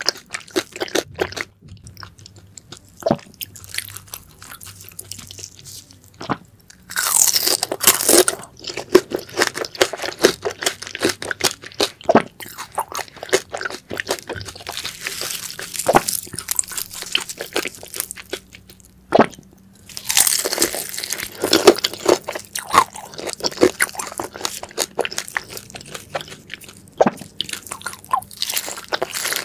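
Close-miked crunching and chewing of crispy grilled daechang (large intestine). There are loud bursts of crunchy bites about seven seconds in and again about twenty seconds in, with softer chewing crunches between them.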